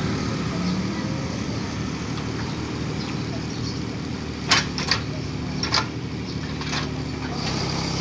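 Backhoe's diesel engine running steadily, with four sharp metallic clanks in the second half.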